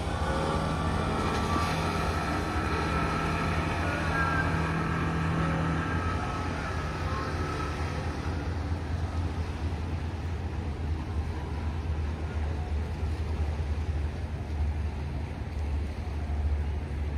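Speedboat engine running at speed as the boat passes, its note fading away after about eight seconds, over a steady low rumble of wind and water.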